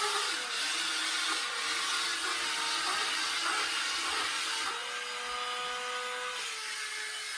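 Battery-powered wall-climbing RC toy car's suction fan running with a steady whirring hiss, like a small vacuum cleaner, while the car is driven on the wall; the motor tone shifts and steps in pitch as the drive motors work.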